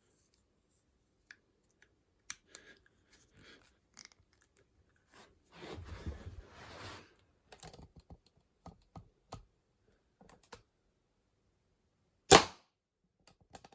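Webley Junior .177 spring-piston air pistol being handled and readied, with scattered clicks and a scraping stretch of about a second and a half in the middle, then a single sharp shot near the end, the loudest sound.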